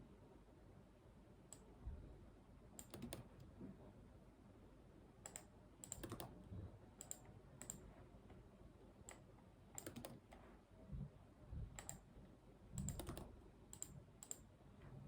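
Faint, irregular computer keyboard keystrokes and mouse-button clicks, singly or in small clusters of two or three with pauses between them, not steady typing.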